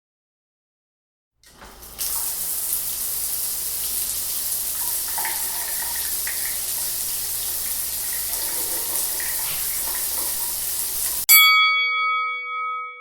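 Steady hiss of running water, like a tap running, starting after a second and a half of silence. About 11 seconds in, it cuts off sharply and a bell-like chime dings once and rings out.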